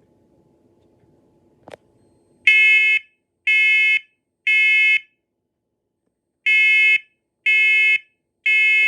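First Alert smoke alarm sounding its alarm during a test: two sets of three loud, high-pitched beeps, about half a second each, with a pause of about a second and a half between the sets (the temporal-three evacuation pattern). A short click comes just before the first beep.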